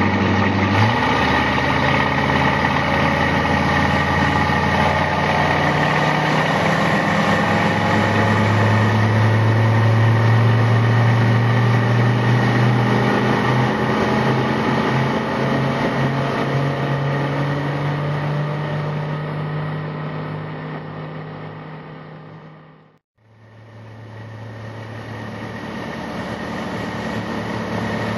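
Inboard engine of a 1957 Century Thoroughbred wooden runabout running under way. Its pitch climbs steadily over the first dozen seconds as the boat speeds up, then holds. The sound fades out about 23 seconds in and fades back in.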